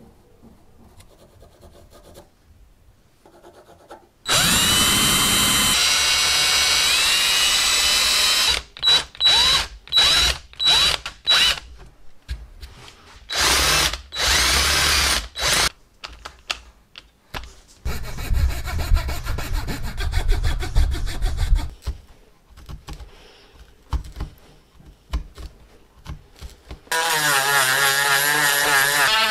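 An electric drill boring into a wooden handle with a long auger bit: first one long run, then a series of short stop-start bursts. Near the end a rotary tool with a small sanding drum starts up and runs steadily, sanding out the wood.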